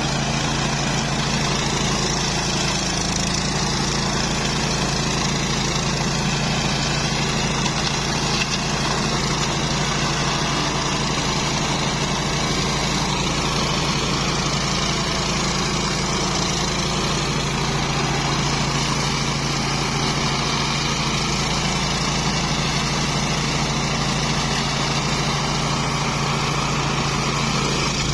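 Engine of a flail mower running steadily at a constant speed, its pitch wavering only slightly.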